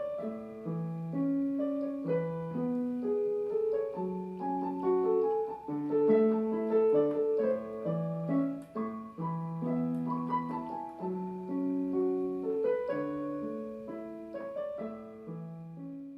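Background piano music: a gentle melody of single sustained notes, growing quieter toward the end.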